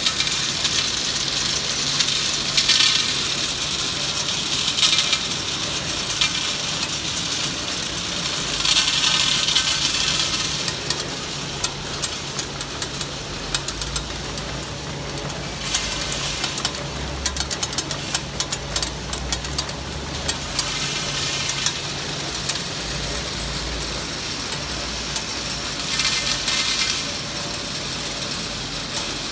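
MWCA Mini Wrap pillow-pack candy wrapping machine running on a hard-candy test: a steady mechanical hum under a constant patter of clicks and clinks from the hard candies in its rotary feed bowl and infeed track, with a few stretches of louder hissing noise.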